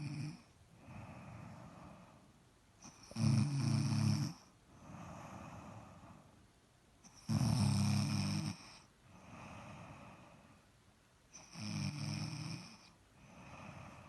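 Loud snoring in a slow, regular rhythm: three loud, low buzzing snores about four seconds apart, each lasting about a second, with softer breathing sounds between them.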